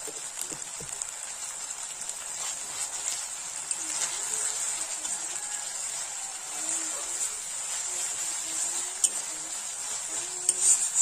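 Onion and spice masala frying and sizzling in a kadai, with fine crackling throughout as a metal spatula stirs it. Toward the end the spatula scrapes and knocks against the pan a few times, louder than the sizzle.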